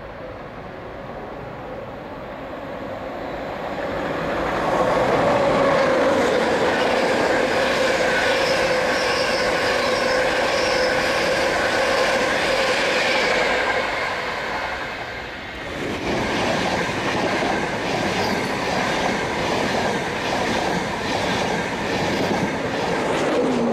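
Electric InterCity 225 express, a Class 91-hauled set of Mk4 coaches, approaching and running through the station at speed without stopping: the sound rises over the first few seconds to a loud, steady rush of wheels on rail with a steady tone in it. After a brief dip about two-thirds of the way through, the loud passing of coaches goes on to the end.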